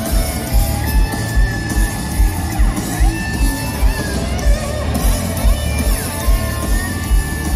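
Live blues-rock band over a festival PA, with a steady kick-drum beat and electric guitar. A lap steel guitar plays gliding slide notes through the middle.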